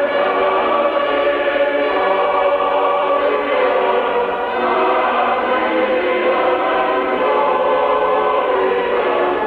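Choral music: a choir singing slow, sustained chords that change every second or two.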